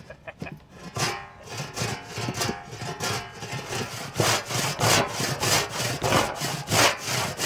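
Freshly hand-sharpened Japanese maebiki saw sawing into a wooden slab. The strokes start sparse about a second in and settle into a steady rhythm of about two to three a second from the middle onward.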